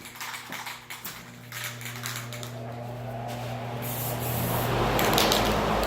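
Paint spraying starts: scattered clicks, then a steady hum, then a loud spray hiss building from about four and a half seconds in.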